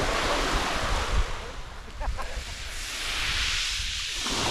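Sea surf washing on the shingle of Chesil Beach, a wave's hiss swelling over the last couple of seconds, with wind rumbling on the microphone.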